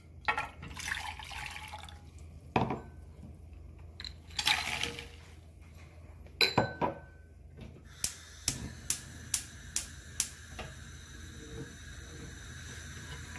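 Boiling water poured from a ceramic bowl onto sugar in a metal saucepan, splashing in two pours, with a few knocks of the bowl against the pot. About eight seconds in, a gas hob's igniter clicks about twice a second for a couple of seconds as the burner is lit, then a steady gas hiss runs on.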